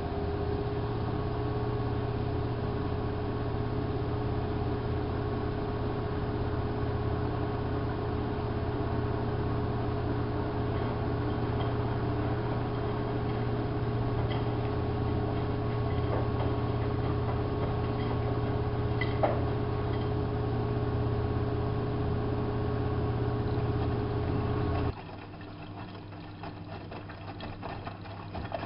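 Hanseatic HWM814A3D front-loading washing machine running mid-cycle with a steady mechanical hum and whine. Near the end the louder part cuts off suddenly, leaving a quieter running sound with light ticking.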